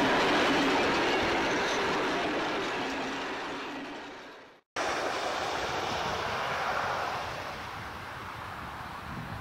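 Carriages of a steam-hauled passenger train rolling past on the rails, the noise fading steadily as they go and then cutting off suddenly about halfway through. After the cut a steady, quieter rushing noise follows and eases off a couple of seconds later.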